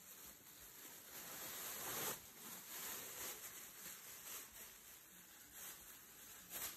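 Thin plastic bag crinkling as shredded cardboard and paper is tipped out of it into a plastic bin, the dry shreds sliding and falling in; loudest about two seconds in.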